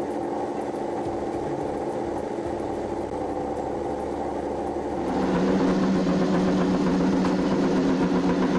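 Yamaha YZR-M1 MotoGP inline-four engine with a crossplane crank running steadily. About five seconds in, the Honda RC213V's V4 big-bang engine takes over, louder and with a deeper steady note.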